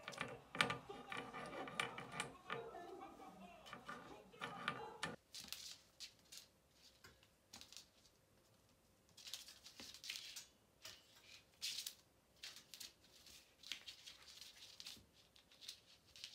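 A kitten mewing for the first few seconds, then the irregular scratchy clicks and scuffles of a kitten's claws and paws on a wooden floor as it plays.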